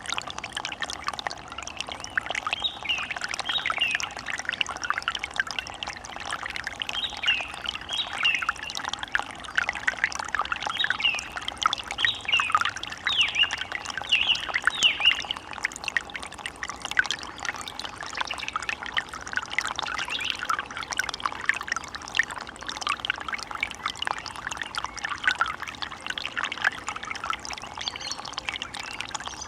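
Water running and trickling steadily, with many short bird calls over it, busiest in the first half.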